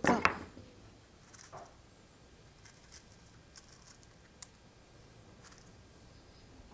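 Faint, scattered clicks and short metallic rattles of small nails and hardware being rummaged through in a tool-chest drawer.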